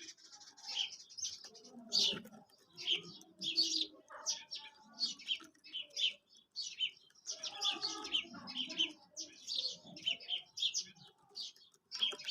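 Quail calling: a dense, irregular run of short, high chirps, several a second.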